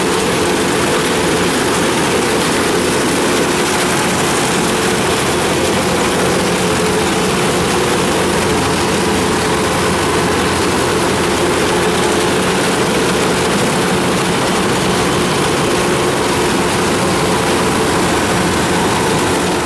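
Kubota DC-105X combine harvester running steadily at work: its diesel engine and threshing machinery make a loud, even mechanical din.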